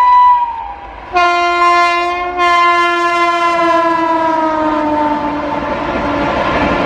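High-speed passenger train sounding a long horn blast with a brief break, its pitch dropping as the train races past, then the rush and rumble of the train going by at speed. A higher horn note ends just as it starts.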